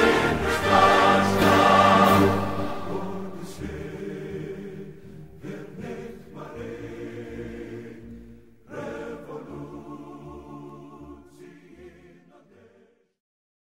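Choral music with voices singing together, gradually fading out and ending just before the close.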